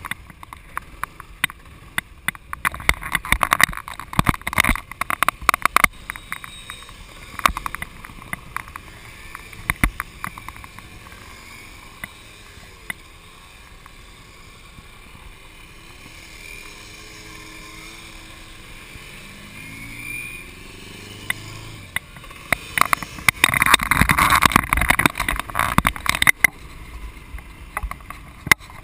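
Wind buffeting and crackling on the microphone of a camera mounted on a moving scooter, with a faint scooter engine note that rises and falls in pitch in the middle. The wind rush swells loudest about 23 to 26 seconds in as the scooter picks up speed.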